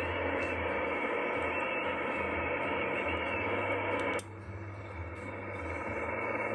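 Amateur radio receiver hissing with static from its speaker, the noise held to a narrow voice-range band over a low hum. A sharp click comes about two-thirds of the way in, the hiss drops abruptly, and then it slowly builds back.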